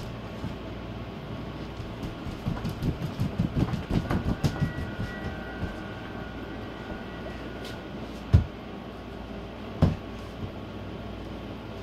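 Footsteps thudding on a hard floor over a steady low hum: a run of many quick steps a few seconds in, then two heavy single thuds near the end.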